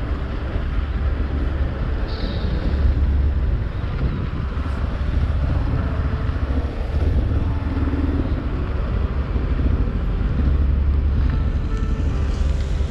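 Motorcycle engine idling with cars moving slowly close by, a steady low rumble.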